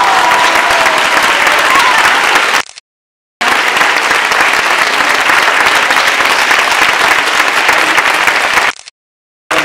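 A crowd applauding, loud and continuous. The sound cuts out abruptly twice for under a second, about three seconds in and near the end.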